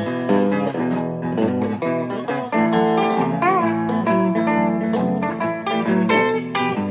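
Boogie-style blues tune played on a plucked string instrument, with quick runs of plucked notes. About halfway through, one note is bent up and back down.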